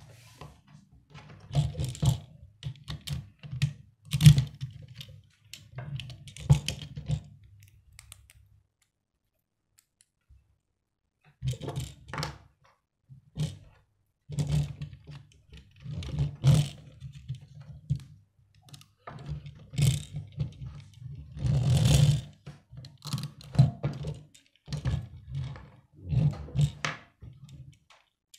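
Plastic Lego bricks clicking and knocking as they are pressed together and a small Lego toy car is handled and set down on a wooden tabletop: irregular clicks and thuds, with a quiet pause of a few seconds about a third of the way in.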